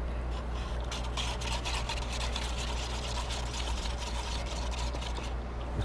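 Paintbrush strokes brushing and scraping across a painted board, a quick run of short scratchy strokes that stops shortly before the end, over a steady low hum.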